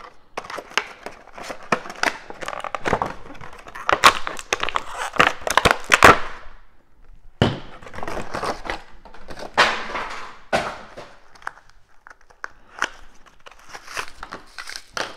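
Hot Wheels Starship Select box being opened by hand: cardboard and plastic packaging tearing, crinkling and crackling in a busy run for about six seconds, then sparser clicks and rustles.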